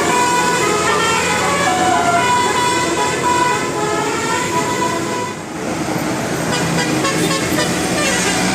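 Bus telolet horn of the Basuri type playing a stepped melody, its notes changing several times a second. The tune dips briefly about five and a half seconds in, then further horn tones follow.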